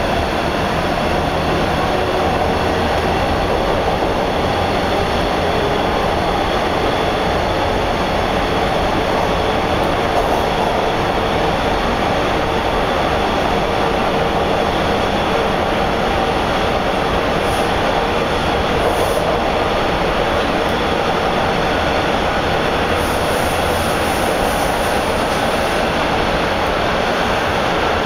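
Interior of a TTC Bombardier T1 subway car running through a tunnel: a steady, loud rumble of wheels on rail and running gear, with a faint whine.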